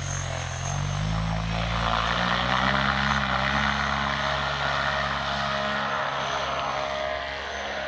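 Paramotor engine and propeller run up to full power about a second in and held steady through the takeoff run and climb-out, easing slightly near the end as the paramotor flies away.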